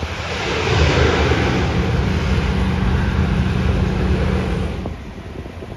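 Saab 340B twin-turboprop airliner running on the ground, its General Electric CT7 turboprops giving a steady low propeller hum under a loud rushing hiss. The sound swells in the first second and drops off sharply about five seconds in.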